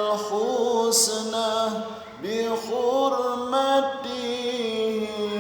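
A solo voice singing a shalawat in long, drawn-out, ornamented notes. The phrase breaks briefly about two seconds in, and the next one begins.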